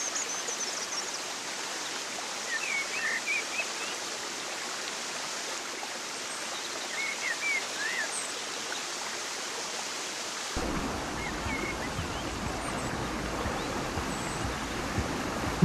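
Steady rush of running water with scattered short bird chirps. About ten seconds in, the sound cuts to a fuller, deeper rush of canal water with a child splashing in it.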